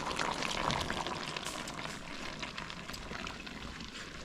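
Pot of food bubbling and crackling over the cooking fire, many small pops in a steady hiss, growing fainter toward the end.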